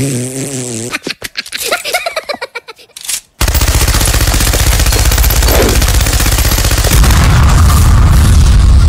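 A high cartoon voice babbles and giggles for about three seconds. Then sustained rapid machine-gun fire starts abruptly, and a heavy explosion rumble builds under it about seven seconds in.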